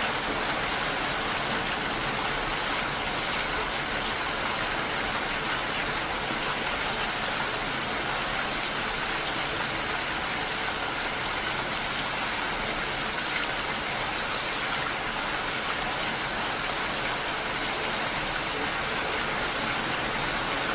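Steady rain: an even, unbroken hiss with no separate drops or thunder standing out.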